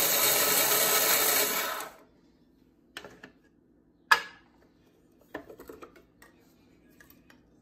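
Small electric kitchen chopper running at full speed, chopping cooked bacon into bits, then cutting off sharply about two seconds in. A few knocks and clicks follow as the appliance is handled, one sharp knock louder than the rest.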